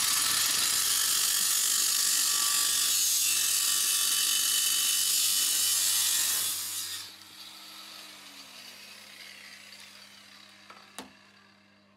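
A corded power tool works on the car's steel exhaust pipe overhead, a loud harsh rasping noise that stops abruptly about seven seconds in. A steady low electrical hum remains, with one sharp click near the end.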